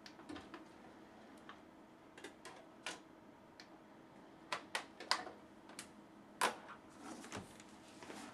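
Sharp plastic clicks and clacks, about a dozen at irregular intervals and loudest around the middle, as a Blu-ray disc case is opened and the disc is handled for loading into the player, over a faint steady hum.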